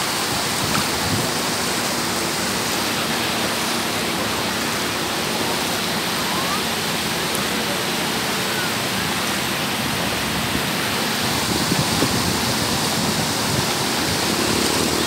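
Sea surf washing up a shallow sandy beach: a steady rush of water noise with no breaks.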